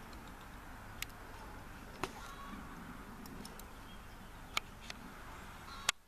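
Quiet outdoor background noise with a few sharp, brief clicks scattered through it, the loudest near the end.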